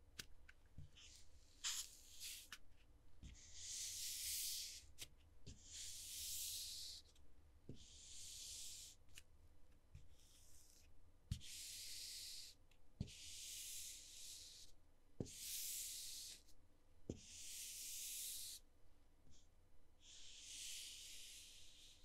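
Something sliding across a surface, again and again: a series of about eight or nine short, hissing slides, each about a second long, with soft knocks between them.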